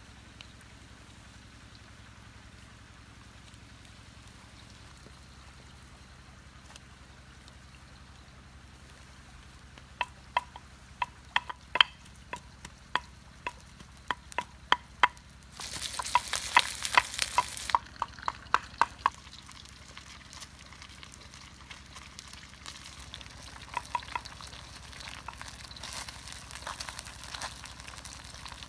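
Wooden pestle pounding in a clay mortar, sharp knocks about two a second for around nine seconds, with a loud hiss for a couple of seconds in the middle. Fish frying in a wok over a wood fire sizzle faintly underneath, and quieter scraping and tapping at the mortar follow near the end.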